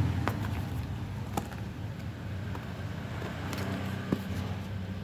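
A steady low hum like an idling engine, with a few sharp clicks: one near the start, one about a second and a half in, and a louder one about four seconds in.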